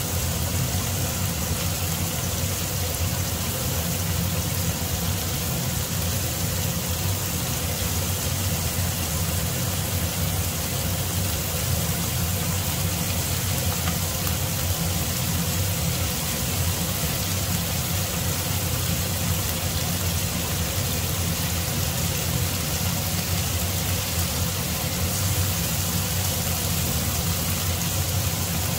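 Marinated beef slices sizzling in butter in a nonstick frying pan, a steady hiss with a steady low hum underneath.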